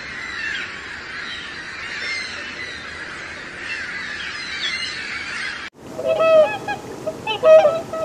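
A chorus of small birds chirping over a steady hiss, cut off abruptly a little before six seconds in. It gives way to loud honking calls of waterfowl, several short honks in quick succession.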